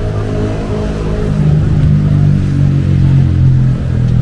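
Motor vehicle engine running with a low, steady drone that grows louder through the middle and then eases slightly.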